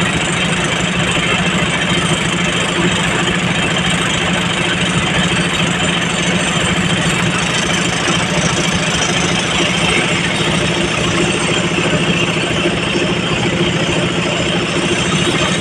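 Heavy diesel machinery engine running steadily at a constant pace, with no revving or pauses.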